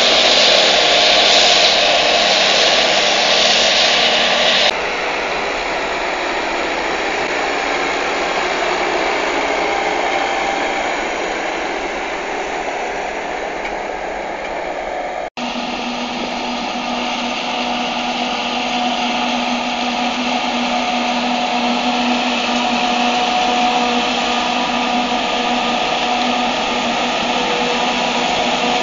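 Self-propelled forage harvester running steadily while chopping maize, mixed with the engines of the tractors drawing the silage trailers alongside: a continuous mechanical drone with a steady whine. The level drops suddenly about five seconds in, and the sound cuts out for an instant about halfway through.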